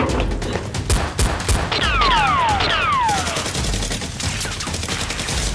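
Gunfire sound effects laid over a Nerf blaster fight: rapid volleys of shots, with several falling whistles about two seconds in.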